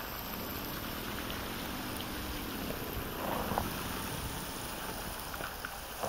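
Steady rush of flowing river water, with a brief louder surge about three and a half seconds in.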